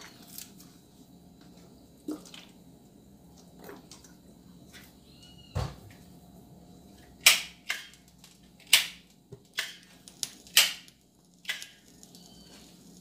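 A hand-held lighter being struck over and over: a string of sharp, scratchy clicks, mostly in the second half, with a dull knock a little before them.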